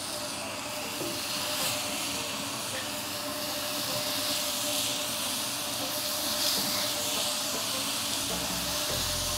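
Pineapple slices sizzling steadily on a hot, oiled cast-iron grill pan as they are laid down one after another.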